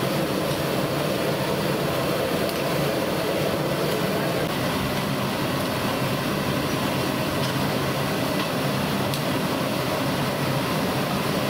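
Vadas deep-frying in a kadai of hot oil: a steady sizzle with a few faint pops, over a constant low rumble.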